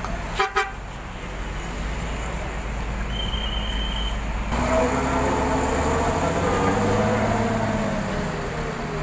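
Two short blasts of a bus horn about half a second in, over a diesel engine's low idle. After a cut about four and a half seconds in, a Mercedes-Benz intercity coach's diesel engine revs as the bus pulls away, its pitch rising and then easing off.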